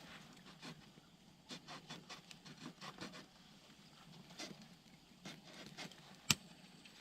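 Wood campfire crackling with scattered small ticks and pops, and one sharp loud pop about six seconds in.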